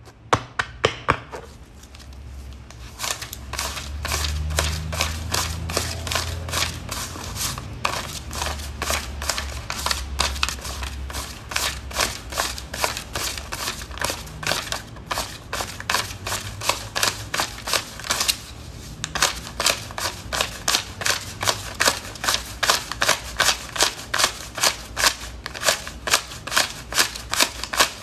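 A stack of paper banknotes being counted by hand: each bill snapped off the stack in a quick, even run of crisp paper flicks, about two to three a second, with a short break twice. A low steady hum sits underneath.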